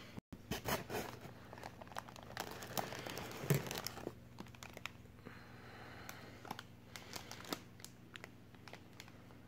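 Plastic fish-shipping bags crinkling as they are handled and lifted out of a styrofoam-lined box: irregular crackles, thickest in the first few seconds, then thinning to occasional ticks.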